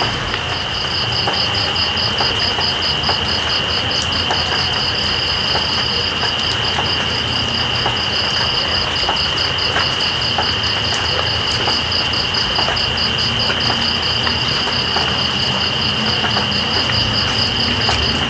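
Steady rain with night insects calling over it: one high, unbroken trill and a fast, evenly pulsing chirp above it.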